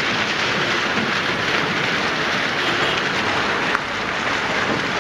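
Traffic on a flooded, muddy road: a steady hiss of tyres running through water and mud, with vehicle engines underneath.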